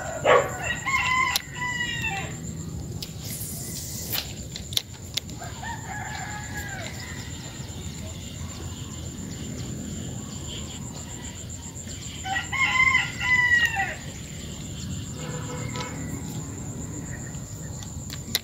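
Roosters crowing three times: a loud crow right at the start, a fainter one about six seconds in, and another loud one about twelve seconds in, over a steady high-pitched whine.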